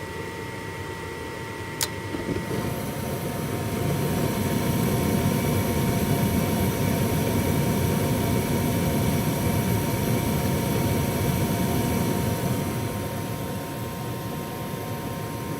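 Gas furnace running: a sharp click about two seconds in, then a steady rushing that builds over the next couple of seconds and eases off a little near the end.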